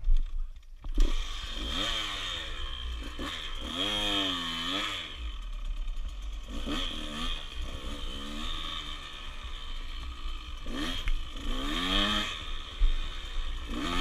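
Small dirt bike's engine being ridden, revving up and falling back several times as the throttle is worked, with a steady low rumble underneath.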